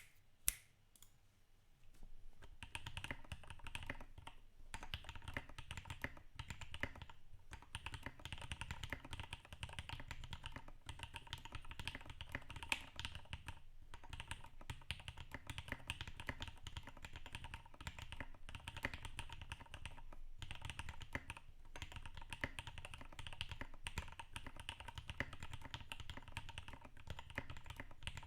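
Fast typing on a RAMA KARA mechanical keyboard with lubed EV-02 switches and PBT keycaps: a single keystroke just after the start, then a dense run of keystrokes from about two seconds in, broken by a few short pauses.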